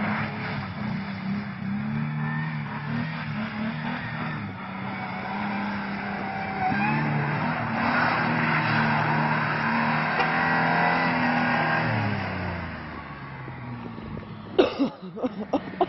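Ford Ranger pickup's engine revving up and down while its rear wheels spin and slide in snow in two-wheel drive, doing a donut. The engine note drops away about twelve seconds in, and a few sharp knocks come near the end.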